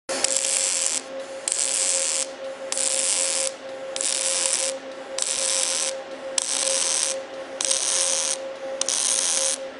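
Rhythmic bursts of hissing noise, about one a second and each under a second long, over a steady high hum.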